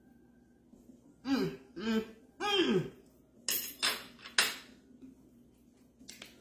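Three short hummed 'mmm' sounds of someone eating, then a few sharp clinks and scrapes of a knife and fork on a plate, the last clink the loudest.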